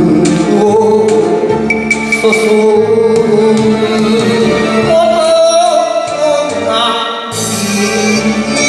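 Enka song: a man singing the melody over an instrumental backing.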